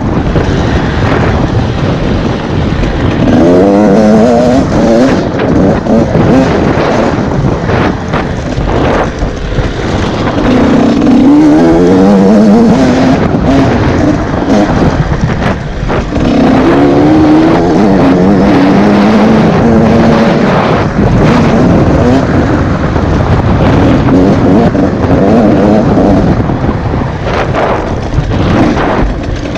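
Two-stroke dirt bike engine heard from the rider's seat, revving up in rising sweeps and dropping back again several times as the bike is ridden hard along a dirt track.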